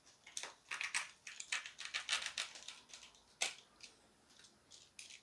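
A hand cutter snipping through a bicycle tyre's rubber casing: a quick, uneven run of short crunching clicks, with a sharper snap about three and a half seconds in before it goes almost quiet.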